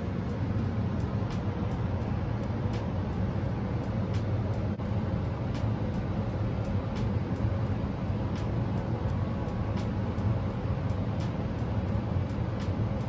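Front-loading washing machine running its tub clean cycle: a steady low hum and rumble of the turning drum, with a faint light click repeating a little faster than once a second.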